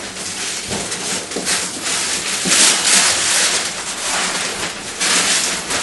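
Wrapping paper being ripped and torn off a large cardboard box: a continuous paper rustling with repeated rips, loudest about two and a half seconds in and again near the end.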